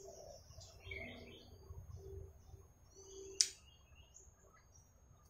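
Faint bird chirps, with one short sharp click about three and a half seconds in.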